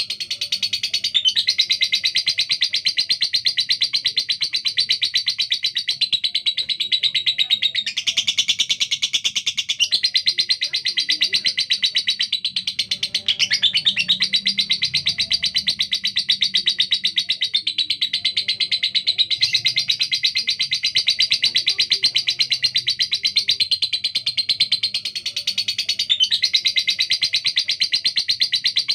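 Female lovebird singing in long runs of rapid, harsh chattering chirps, the fast, rough-voiced song prized in a fighter bird. It breaks off only for a moment about a second in, near the middle and near the end.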